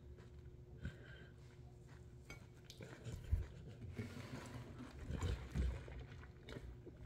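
Close-up eating sounds: chewing noodles, with faint mouth clicks and small knocks. Near the end a plastic water bottle is picked up and sipped through its straw.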